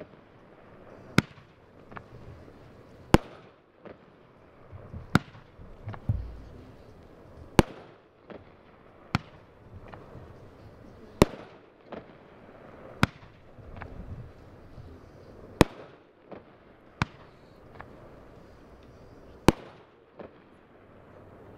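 Aerial fireworks shots bursting in the air one after another: a sharp bang roughly every two seconds, with softer pops and crackle in between.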